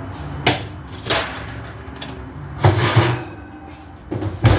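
Kitchen handling noises: a series of sharp knocks and clatters, with a cluster of heavier bangs about three seconds in and a hard knock near the end, like cupboard doors, a drawer or the oven door being opened and shut.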